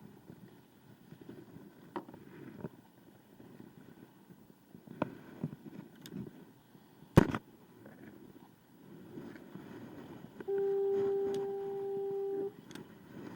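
Scattered knocks, one much louder and sharper about seven seconds in, over a low rush of wind and water; near the end a steady single-pitch tone sounds for about two seconds, then cuts off.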